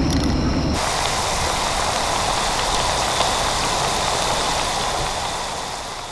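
Battered hairtail pieces deep-frying in a pot of hot oil: a dense, steady sizzle and crackle that starts under a second in and eases slightly near the end.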